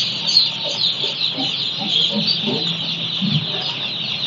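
A large flock of day-old broiler chicks peeping all at once, a dense, continuous high-pitched chorus of many overlapping cheeps.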